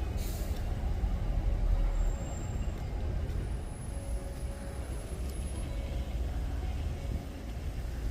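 Steady low rumble of road traffic, with a short hiss near the start.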